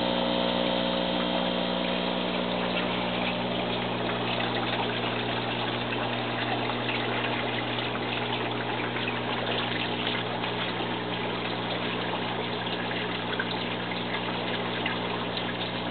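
A 1000 GPH sump pump hums steadily while water runs and splashes through the aquaponics system's plumbing and filter jug.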